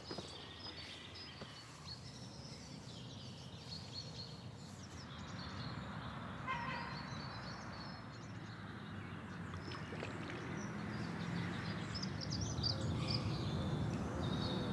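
Outdoor ambience with birds calling here and there, including a short run of repeated calls about six and a half seconds in, over a low steady rumble that grows louder toward the end.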